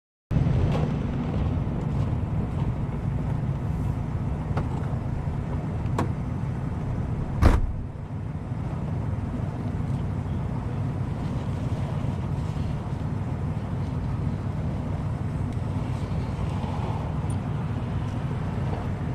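A road vehicle driving, a steady low rumble of engine and road noise, with one sharp thump about seven and a half seconds in.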